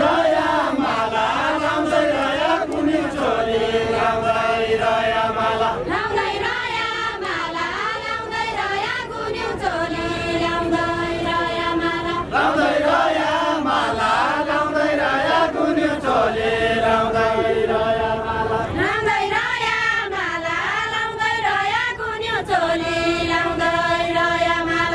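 A group of voices singing a Deuda folk song together. Long held notes alternate with wavering, ornamented passages, in phrases a few seconds long.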